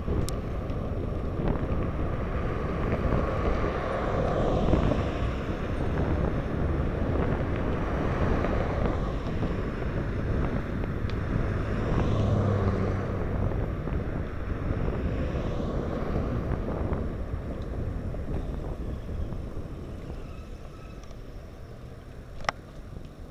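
Wind buffeting the microphone of a camera riding on a moving road bike, a steady rush that eases over the last few seconds. A car passing briefly swells the low rumble about twelve seconds in, and there is a single sharp click near the end.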